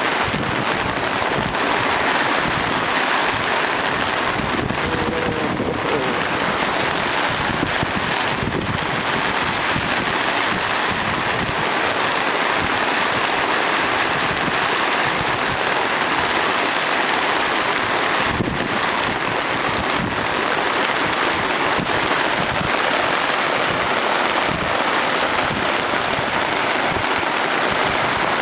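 Heavy rain pouring steadily in a storm.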